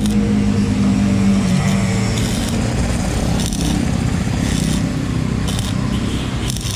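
Honda Revo motorcycle's single-cylinder four-stroke engine running steadily, with a few short clicks or scrapes over it.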